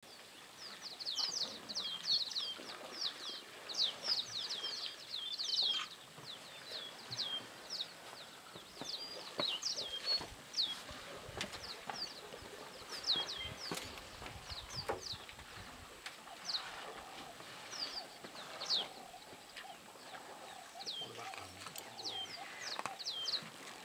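Small birds chirping over and over in short, high notes that slide downward, in quick flurries with brief gaps, along with a few soft knocks and a faint low rumble in the middle.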